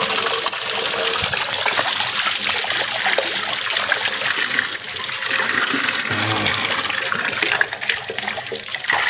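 Water gushing from an outdoor tap in a strong, steady flow, splashing on a hand and the concrete floor below; it turns briefly quieter near the end.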